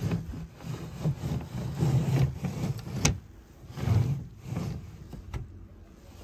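Wooden tambour roll top of a reproduction oak roll-top desk being rolled in its tracks: an uneven wooden rattling rub with a sharp knock about three seconds in, dying down near the end.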